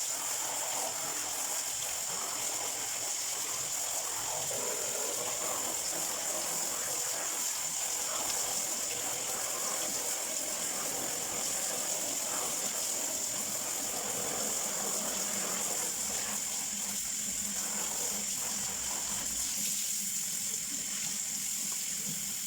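Water running steadily onto a barrel vacuum cleaner's dust bag as it is rinsed by hand to wash out the trapped dust.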